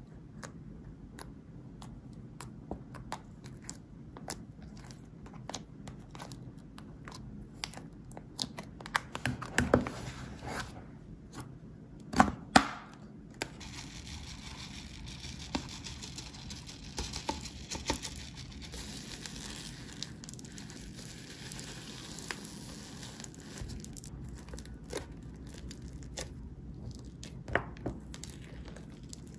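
Hands poking and squishing slime in a plastic tub: sticky clicks and pops, loudest about ten and twelve seconds in. In the second half, a dense crackle of small foam beads being kneaded into the slime.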